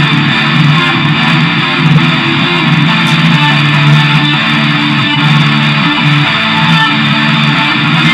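Instrumental progressive rock passage led by guitars, playing at a steady, full level.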